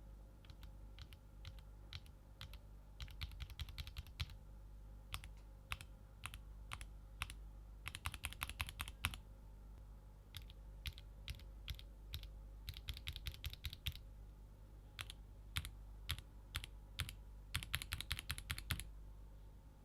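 Mechanical keyboard keystrokes on Gateron linear switches: Box Ink Black V2 switches first, then Box Ink Pink V2 from about halfway through. The keys are pressed singly and in quick runs of rapid typing.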